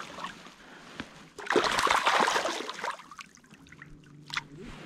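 A hooked cutthroat trout splashing and thrashing in shallow water at the shore for about a second and a half, with the water lapping around it before and after.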